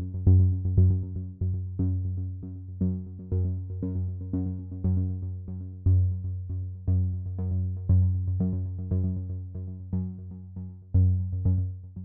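Electronic background music: a steady pulse of short synthesizer notes that each fade quickly, over a deep bass, cutting off at the end.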